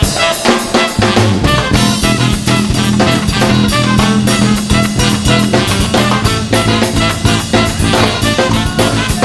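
Live band playing an instrumental passage of an upbeat ska-style song: a drum kit keeping a steady beat over held bass notes, with horns.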